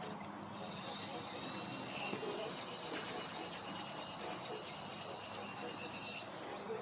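A small toy helicopter's motor and rotor spin up to a steady, high-pitched whine with a fast flutter. It starts about a second in and cuts off abruptly near the end. The helicopter is still running after its water test.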